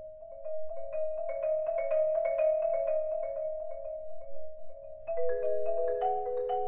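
A mallet percussion ensemble (marimba and vibraphone sounds) playing: held notes in the middle register under quick, repeated high struck notes. It grows louder about half a second in, and a new lower chord comes in about five seconds in.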